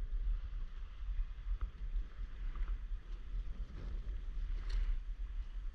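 Wind rumbling on the microphone over faint water lapping around a paddleboard, with a few soft taps.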